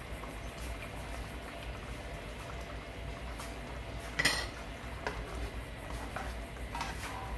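A metal utensil clinking against a karahi. There is one sharp, ringing clink about four seconds in and a few lighter knocks after it, over a low steady background.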